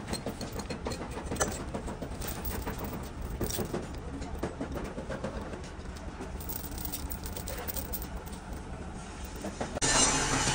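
A vehicle engine running with a steady low rumble, with scattered light clicks and knocks over it. Near the end a much louder hissing noise comes in suddenly.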